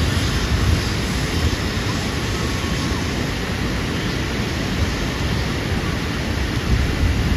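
Wind buffeting the microphone: an uneven low rumble over a steady rushing hiss.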